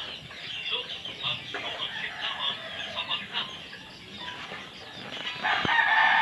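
A rooster crowing, one long call beginning near the end, with softer chicken clucking before it.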